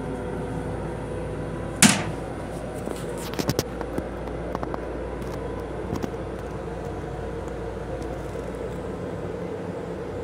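Plastic toilet lid dropping shut onto the seat with one sharp clap about two seconds in, followed by a few light knocks, over the steady hum of an M7 commuter railcar.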